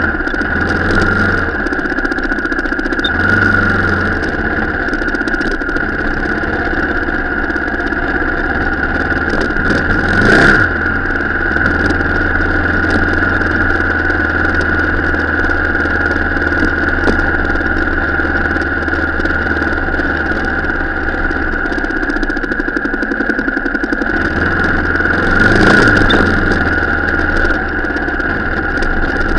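Car engine running steadily while driving off-road, with two brief louder swells where the pitch dips and rises again: one about ten seconds in and one near the end.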